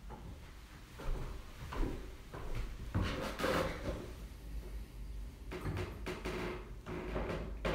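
Knocks, scrapes and rustling of things being handled close to the microphone, in two spells of a few seconds each.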